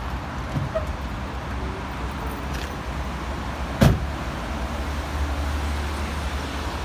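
A steady low rumble with a single sharp knock just under four seconds in.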